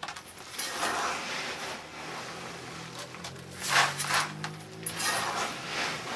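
Dry grain rushing as it is scooped from a sack with a metal bowl and tipped into a plastic bucket, with the sack rustling in between. There are several separate pours, the loudest near the middle.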